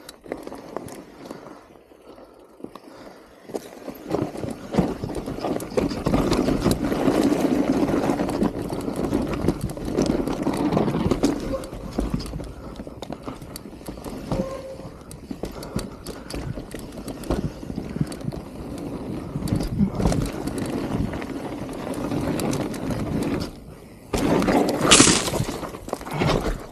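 Mountain bike descending a rough, rocky forest trail: tyres rumbling and crunching over dirt and rocks, with the bike rattling and knocking over bumps. Near the end a sudden loud rush of noise cuts in for about a second.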